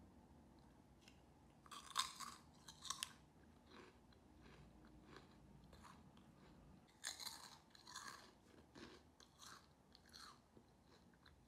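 Crunchy cone-shaped corn snacks being chewed, in two spells of crisp crunching: one about two seconds in and a longer one from about seven seconds in.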